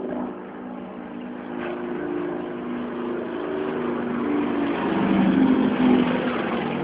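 Aircraft engine droning overhead as the plane passes, growing louder to a peak about five seconds in.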